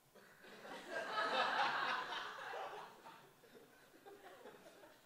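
Audience laughing. It swells from about half a second in, peaks over the next two seconds, and dies away toward the end.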